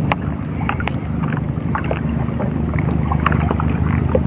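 A steady low drone runs throughout, under scattered small splashes, drips and clicks of seawater and mesh as a wet gill net is hauled up and picked by hand in shallow water.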